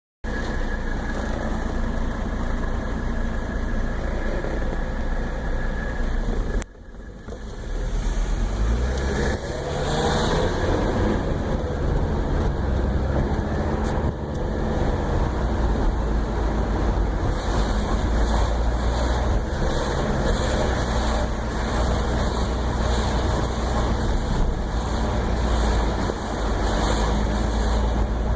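1984 Mercedes-Benz 300CD's five-cylinder diesel engine running while the car is driven in city traffic. The sound drops out briefly about seven seconds in; then the engine note climbs as the car accelerates, and it runs steadily after that.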